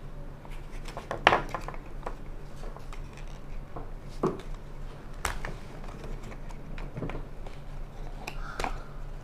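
Cardboard packaging and a plastic bicycle light being handled: scattered clicks, taps and rustles, the loudest about a second in, over a low steady hum.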